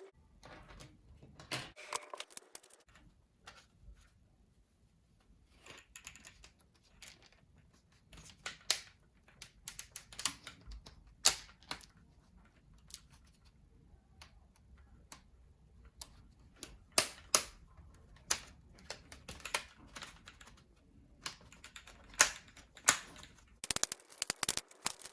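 Irregular sharp clicks and snaps of plastic laptop parts being handled and pried apart, with a quick flurry of clicks near the end.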